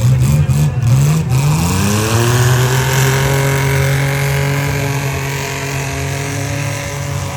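Six-cylinder demolition derby car engines revving, wavering briefly, then one climbs in pitch about two seconds in and is held at steady high revs.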